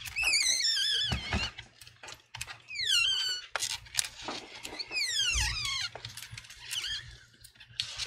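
Adhesive tape squealing as it is pulled out from under a laptop LCD panel: three drawn-out squeals, each falling in pitch, with small clicks between them.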